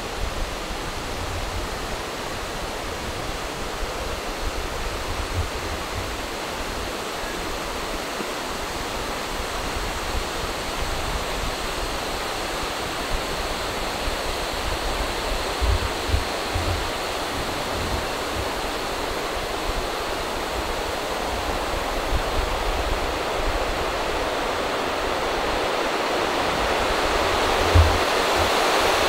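A steady rushing noise that grows slightly louder toward the end, with a few soft low thumps.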